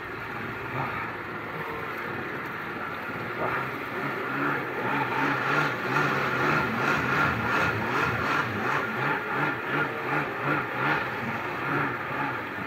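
1998 Kawasaki SXi Pro stand-up jet ski's two-stroke engine running under way, with water rushing along the hull. From about five seconds in the sound swells and fades about twice a second.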